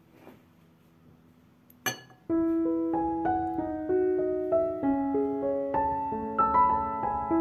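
Background piano music with a gentle melody of single notes over held chords, starting about two seconds in. Before it there is a single light clink.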